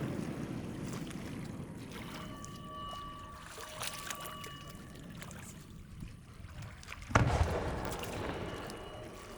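Fireworks display: the low rumble of earlier shell bursts dies away with scattered crackling, then about seven seconds in an aerial firework shell bursts with a loud boom that rolls on and fades.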